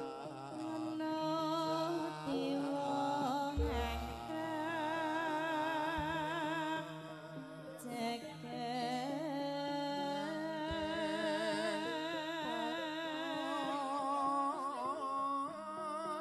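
Javanese gamelan music playing steady held metallic notes under a woman singing a wavering, ornamented vocal line. A deep low boom sounds about three and a half seconds in.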